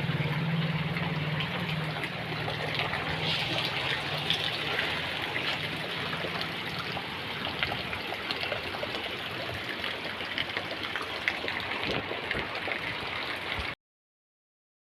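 Rain falling and floodwater running over a waterlogged street, with a low steady hum that fades away over the first half. The sound cuts out abruptly near the end.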